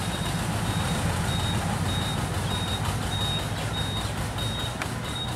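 Distant diesel locomotive engine running with a steady low throb as the train approaches. A short, high beeping note repeats about every 0.6 seconds over it.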